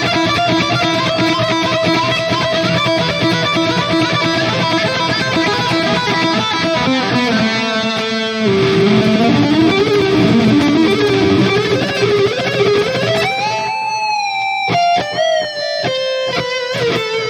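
Distorted electric guitar played through a digital amp-modeling multi-effects unit: dense chords and riffing, then a louder single-note lead line about halfway through, ending in long held notes with vibrato that step lower toward the end.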